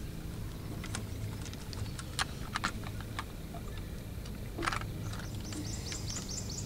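Scattered light clicks and taps of a caught bass being unhooked and handled, with a steady low hum underneath. Near the end comes a quick run of high chirps.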